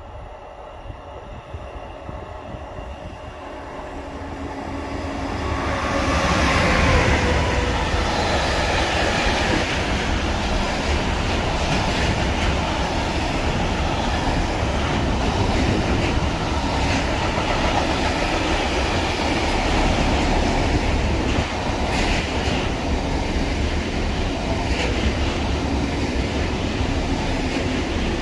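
A train approaching and passing on the rails. The sound builds over the first six seconds, with a tone that dips in pitch as the train comes by. A steady rumble of wheels on track follows, with a few clicks later on.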